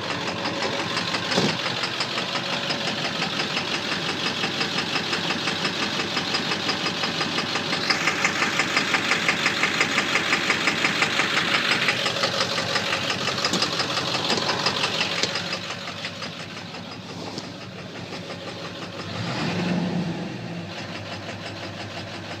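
Ford 7.3 Power Stroke turbo-diesel V8 running with a rhythmic engine knock. It gets louder for several seconds in the middle, then settles back down.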